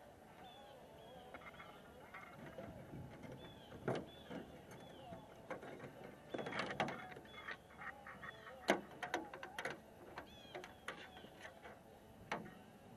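Scattered sharp knocks and rattles of a landing net and boat gear as a netted Chinook salmon is handled beside the boat. The loudest knock comes a little past the middle. Short repeated bird chirps sound throughout.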